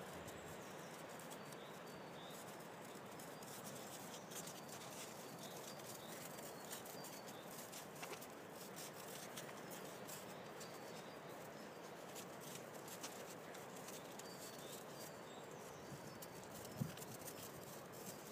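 Faint rustling, scuffing and soft clicks of Tibetan mastiff puppies clambering over an adult dog on snow, over a steady outdoor hiss. A single soft thump comes near the end.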